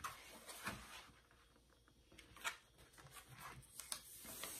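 Faint paper rustling and a few light taps as cardstock is handled and laid onto an adhesive cutting mat.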